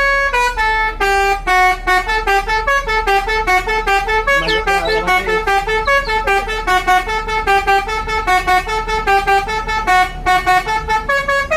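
Telolet multi-tone bus horn playing a fast tune of short honks, often two notes sounding together, with only brief breaks between phrases.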